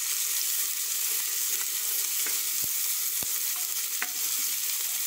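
Chopped onion, tomato, ginger, chilli and garlic sizzling in hot oil in a pressure cooker while being stirred with a wooden spatula: a steady high hiss, with a few light knocks of the spatula against the pot about two to four seconds in.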